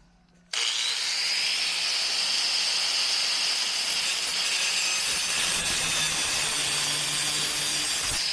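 A handheld power tool starts about half a second in and runs steadily with a high whine while working on a car body panel during bodywork.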